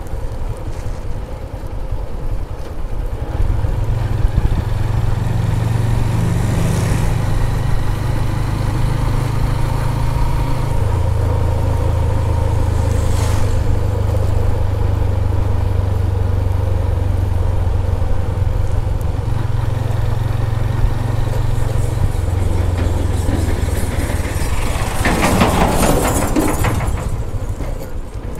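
Motorcycle engine running as the bike rides along a rough dirt road, its low note steady with a few shifts in pitch. Near the end a loud rush of noise rises over it, then drops away.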